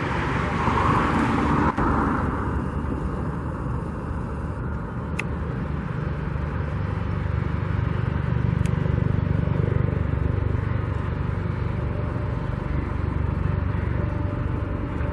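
Steady outdoor rumble of road traffic, louder in the first two seconds as a vehicle goes by.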